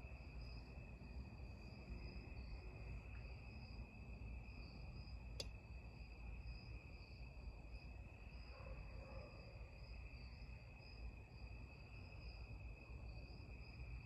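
Harbor Breeze Lakeside II ceiling fan running at low speed, the only speed it has left with its bad capacitor, as a faint low whir. Over it is a steady high-pitched trill, with a single sharp click about five seconds in.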